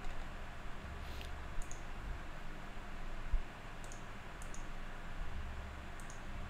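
Computer mouse clicks: a handful of short, sharp single clicks a second or more apart, with one dull low thump midway.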